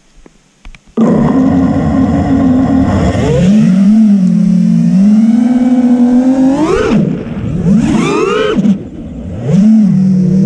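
FPV freestyle quadcopter's brushless motors and propellers spinning up suddenly about a second in as it takes off. After that the whine rises and falls in pitch with the throttle, climbing sharply twice in the second half. It is heard close and loud from the drone's onboard GoPro.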